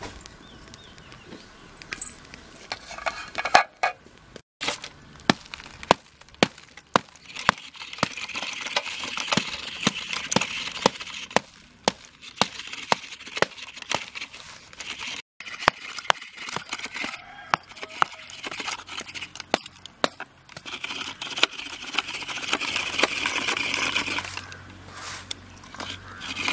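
Hand scraping of fresh coconut from its half-shell with a knife over a steel plate, with long stretches of scraping and many sharp clinks and taps of metal on the plate, alongside knocks from a block of jaggery being broken up with a hand tool.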